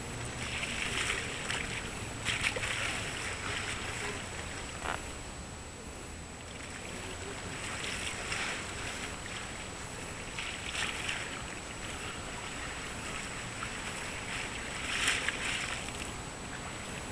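Small harbour waves lapping and splashing against the waterside every few seconds, over a steady low background rumble, with a faint steady high whine throughout.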